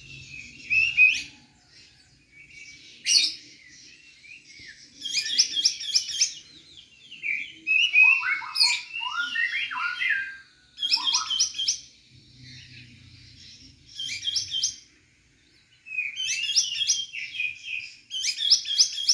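Small birds chirping and singing in repeated bursts of quick, high chirps, with a run of lower, falling notes about halfway through.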